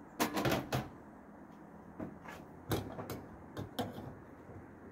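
A quick cluster of sharp knocks and clatters, then about half a dozen more single knocks spread over the next two seconds, like hard objects being handled and set down.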